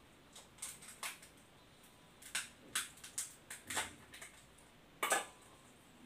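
Shell of a grilled giant freshwater prawn being cracked and pulled apart by hand: a string of about ten short crisp cracks and snaps, the loudest a little after five seconds in.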